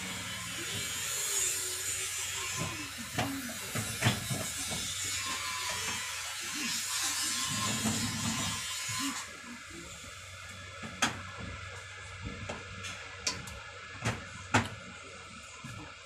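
Scattered sharp plastic clicks and knocks from a washing machine's top control panel being handled and pried at, a few of them loud near the end. A steady hiss runs underneath and stops about nine seconds in.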